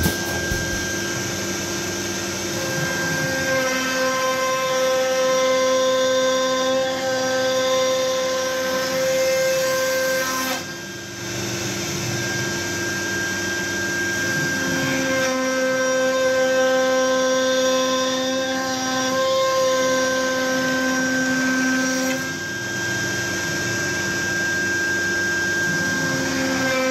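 CNC router spindle cutting through 3/4-inch MDF with a 3/8-inch compression bit in a single pass at 600 inches per minute: a steady high whine over the noise of the cut, with a few lower tones coming and going. The noise dips briefly twice, about eleven and twenty-two seconds in.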